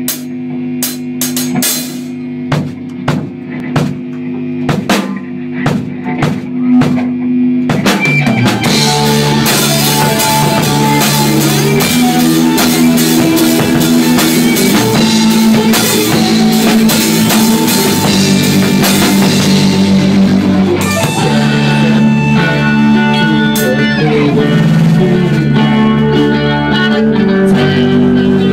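Rock band playing live on electric guitars and drum kit, heard close to the drums. For the first eight seconds there are sparse drum hits over a held guitar chord; then the full band comes in loud.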